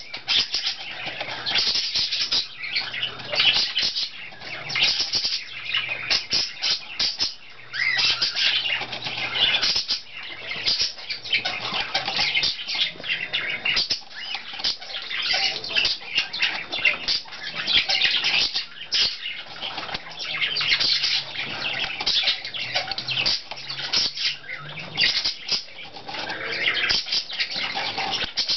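Budgerigar scrabbling and fluttering on a styrofoam block: a dense, scratchy crackle of feet, feathers and styrofoam bits, running on without a break.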